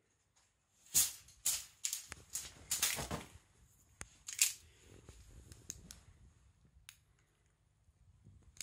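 A Kashabun cat toy's crinkly film crackling and rustling as a cat pounces on it and bites it: a dense run of sharp crinkles from about a second in, lasting a few seconds, then scattered faint ticks.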